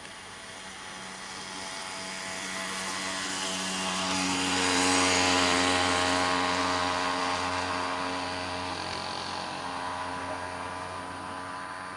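A passing engine: a steady hum with a hiss over it, growing louder to its peak about five seconds in and then fading away.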